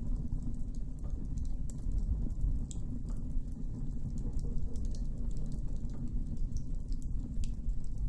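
Wood campfire burning, with scattered sharp crackles and pops over a steady low rumble.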